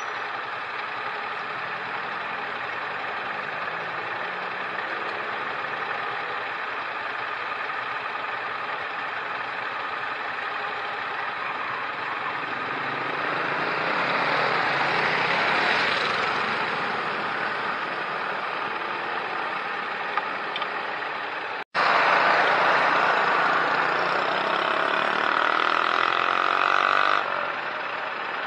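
Road traffic heard from inside a car waiting at a light: a steady engine-and-traffic hum that swells as a group of motorcycles goes past around the middle. After an abrupt cut near the end, louder road noise of the car driving.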